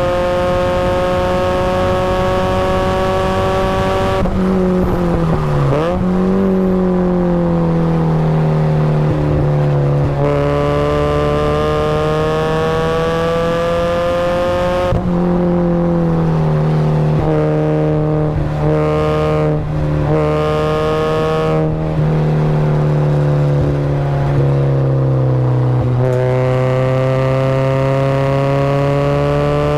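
Supercharged Mazda Miata's four-cylinder engine being driven hard on track: the revs climb steadily, then drop sharply three times, about four, fifteen and twenty-six seconds in, at gear changes or braking. Around twenty seconds the engine note breaks off briefly several times as the throttle is lifted and reapplied.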